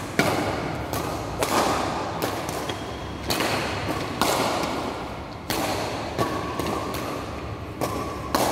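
Badminton racket strings striking a shuttlecock in a doubles rally: a sharp hit about once a second, each ringing briefly in the large hall.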